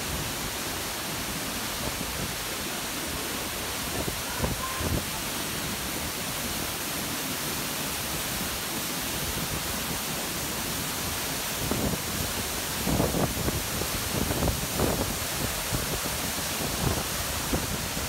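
A waterfall rushing steadily at close range inside a narrow rock gorge, heard as a loud, even hiss of falling water. A few low thumps of buffeting on the microphone come about four seconds in and again between about twelve and fifteen seconds.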